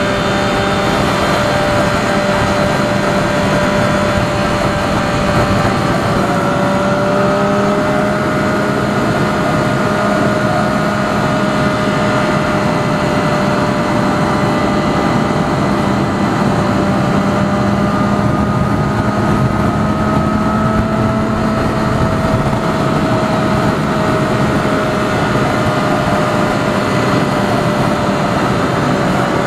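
Triumph Daytona 675's inline three-cylinder engine through an Arrow aftermarket exhaust, running at a steady cruising speed with an even engine note, mixed with wind rush on the onboard microphone.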